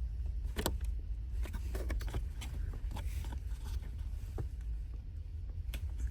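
Scattered plastic clicks and light knocks as the tabs on the cabin filter housing cover behind a VW Golf Mk7's glove box are pushed down, over a steady low rumble.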